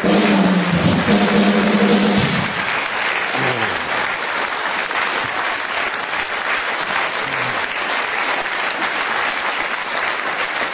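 Studio audience applauding steadily, with a short burst of band music with drums over the first couple of seconds that then drops away under the clapping.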